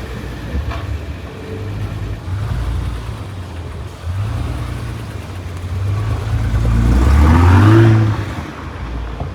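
Car engine running, then revving and accelerating with a rising pitch about seven seconds in, the loudest moment, before it fades.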